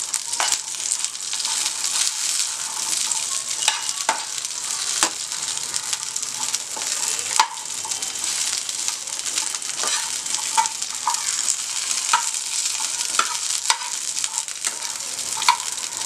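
Whole green chillies sizzling in hot oil in a pan while a spatula stirs them. Frequent short clicks and scrapes of the spatula against the pan sound over the steady frying hiss.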